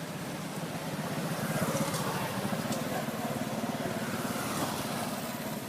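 A motor vehicle engine running steadily, growing louder about a second and a half in.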